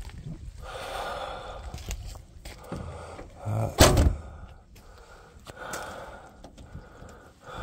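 A single hard thump about four seconds in, with quieter scuffing noises around it.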